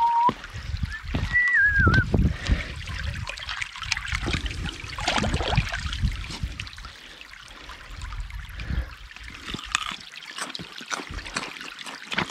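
A brook babbling and trickling over stones. A short falling whistle, like a bird's, comes in the first two seconds, and there are scattered low thumps.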